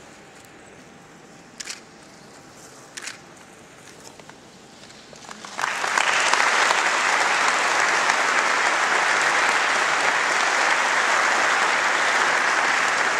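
Audience applauding, the clapping starting about five seconds in and holding steady. Before it there are two sharp knocks.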